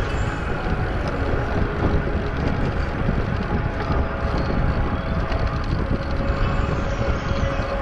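Wind buffeting the microphone of a camera on a moving road bike, a loud steady rumbling noise.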